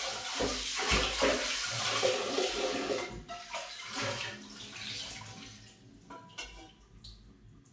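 Tap water running and splashing over a nonstick pot held in a stainless steel sink as it is rinsed; the water dies away about five seconds in, leaving a few light knocks as the pot is handled.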